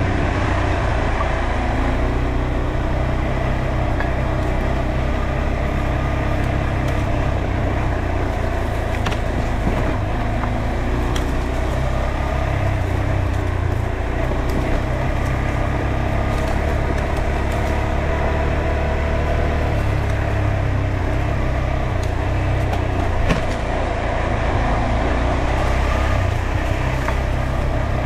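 KTM 390 Adventure's single-cylinder engine running at fairly steady, moderate revs as the bike is ridden along a dirt trail, with a few light clicks scattered through.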